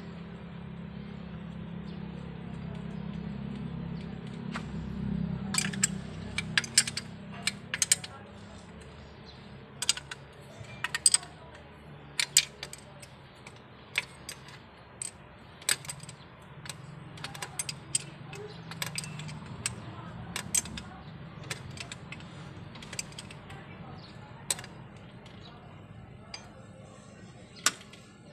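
Sharp, irregular metallic clicks and taps as metal tools and parts are worked on a Toyota Corolla engine's exposed camshaft and rocker arms during a top overhaul, over a low hum in the background.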